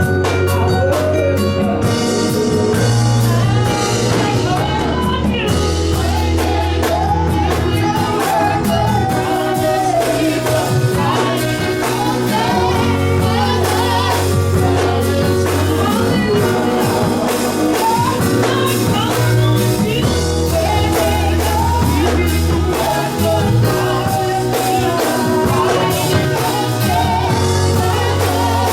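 Live gospel music: a singer with a band of drum kit, bass and keyboard or organ playing a steady beat.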